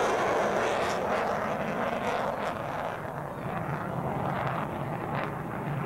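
Jet fighter's engines heard in flight as a broad, steady rushing noise, its higher part thinning after about three seconds as the aircraft draws away.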